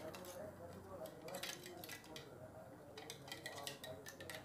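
A few light metallic clinks and taps of a stainless-steel mixer-grinder jar being handled and tipped against a cooking pot.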